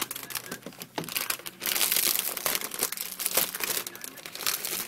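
Clear plastic wrap crinkling as it is pulled off a new laptop: a dense run of crackles, loudest in the middle.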